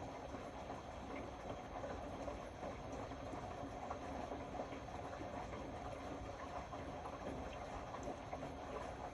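Indesit Innex BWE 91496X washing machine running, a steady churning noise with a dense patter of small irregular knocks.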